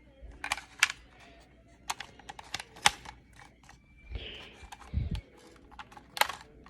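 Sharp plastic clicks and clacks from a homemade toy pistol being handled, about a dozen spread irregularly, with a rustle and a dull thump about four to five seconds in.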